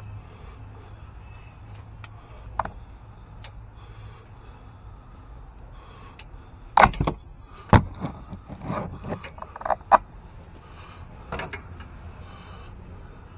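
Click-type torque wrench tightening the oil filter adapter housing bolts on a Ford 4.6 engine. A few sharp clicks, the loudest about 7 and 8 seconds in and one near 10 seconds, with quieter clicks between them.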